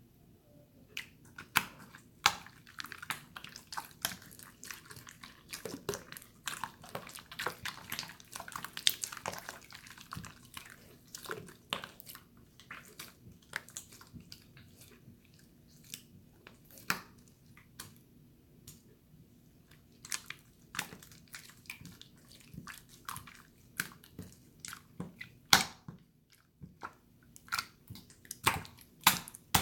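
Water slime squished and poked by hand, making irregular wet, sticky clicks and squelches, with a run of sharp pops about two a second near the end.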